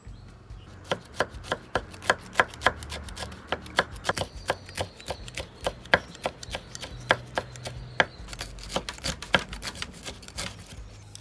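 Serrated kitchen knife chopping green chillies into rings on a wooden cutting board: a quick, steady run of sharp knocks of the blade on the board, several a second.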